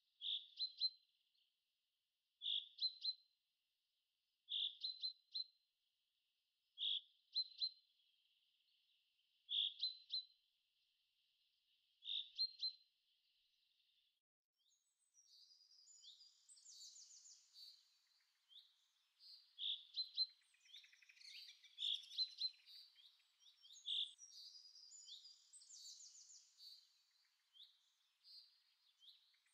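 Birds calling and chirping. For the first half one short call repeats about every two and a half seconds, six times. Then a busier mix of several birds chirping over each other takes over.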